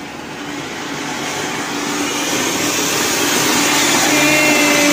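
Ground fountain firework (anar) spraying sparks with a loud, steady hiss that slowly swells in loudness.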